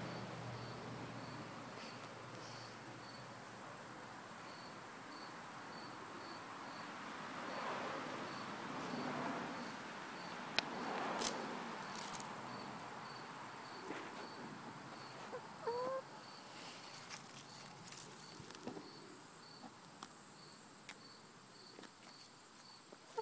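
An insect chirping steadily, about three short high chirps a second, with a few sharp clicks around the middle and a chicken giving a couple of short calls about 16 seconds in.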